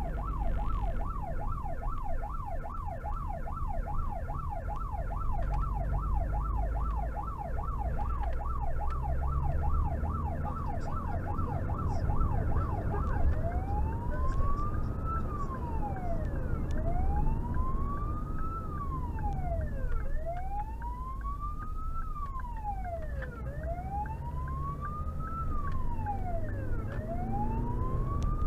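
Emergency car's siren on a rapid yelp, switching about halfway through to a slower wail that rises and falls about every three and a half seconds, over the car's engine and road rumble, heard from inside the cabin.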